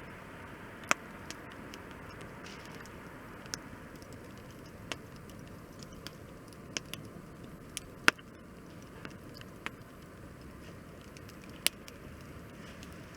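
Wood fire crackling: a steady low hiss broken by sharp, irregular pops. The loudest pops come about a second in, around eight seconds in and near the end.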